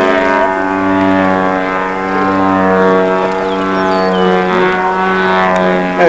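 ZDZ 80 two-stroke gasoline engine and 26x10 propeller of a 33% scale CAP 232 radio-controlled aerobatic plane running in flight. It gives a steady, buzzing drone whose pitch shifts only slightly.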